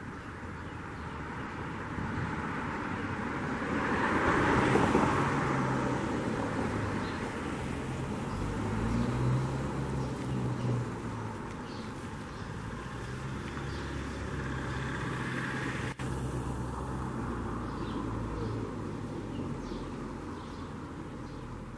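Road traffic: a vehicle passes, swelling and fading about four to five seconds in, and a smaller one around nine to ten seconds, over a low steady engine hum.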